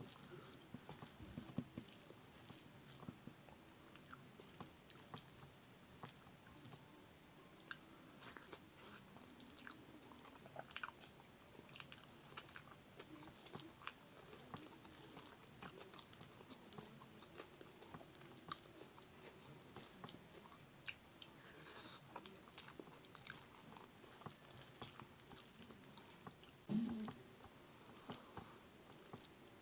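A person chewing and eating close to the microphone: faint, irregular wet mouth clicks and smacks. A short, louder low sound stands out near the end.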